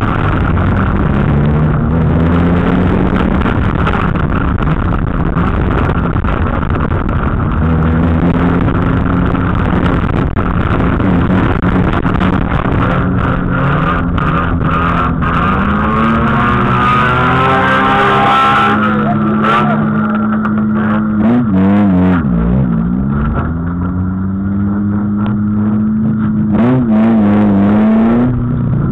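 Old street banger car's engine heard from inside the cabin, revving up and down as it drives. It dips to low revs about two-thirds of the way through before picking up again, with scattered knocks and rattles from the car.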